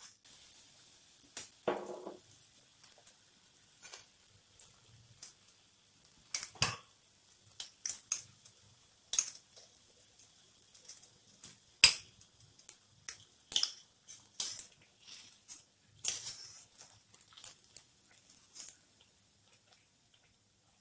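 Wheat-flour (atta) pua batter deep-frying in hot oil: a steady faint sizzle with irregular sharp pops and crackles as the oil bubbles around it. A knock about two seconds in.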